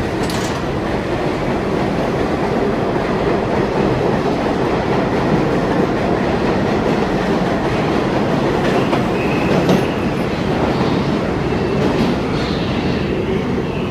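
Vintage IRT subway train (the Train of Many Colors) running through a station at speed: a steady, loud noise of the cars and wheels on the track, with a faint high wheel squeal about nine to ten seconds in as the train pulls away.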